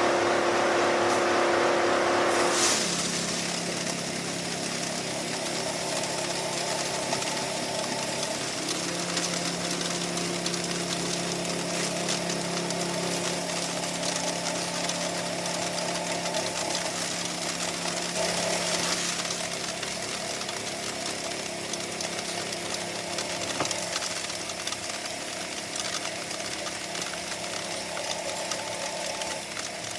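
Homemade sand sieve driven by a washing-machine motor, running continuously: a steady machine hum under a noisy mechanical clatter. The sound changes and drops a little about three seconds in.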